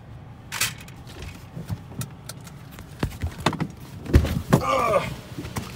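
Scattered clicks and knocks as someone climbs out of a car, with a heavy thump about four seconds in and a brief squeak just after it.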